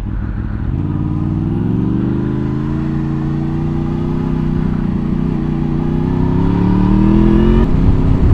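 Honda VFR800's V4 engine pulling under acceleration. Its pitch rises about a second in, holds, then climbs again and falls sharply near the end as the rider shifts up a gear.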